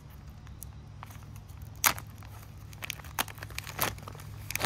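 Sealed green plastic Arctic Field Ration pouch torn open at the corner: one sharp rip about two seconds in, then the plastic crinkling and crackling as the pouch is pulled open.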